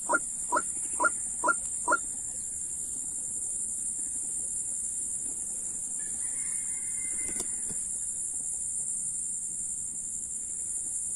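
A fowl-like bird giving a run of short clucking calls, about two a second, which stop about two seconds in. A steady high-pitched insect drone carries on throughout, with a single click about seven seconds in.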